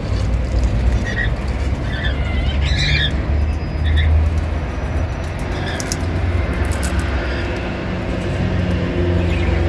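Indian ringneck parrot giving a handful of short squawks, the clearest about three seconds in, with a few sharp clicks of sunflower seeds being cracked near the middle. A steady low rumble runs underneath.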